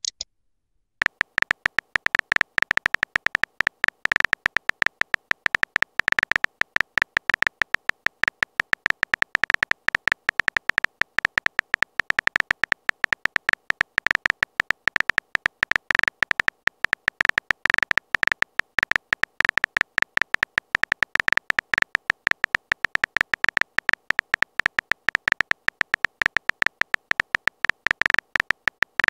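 Phone keyboard typing sound effect: a rapid, uneven stream of short tapping clicks, each with a high beep-like ring, starting about a second in.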